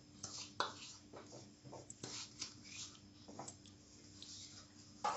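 Faint, scattered taps and scrapes as spices and tamarind pulp are tipped and scraped from a plastic bowl into a stainless steel mixer-grinder jar.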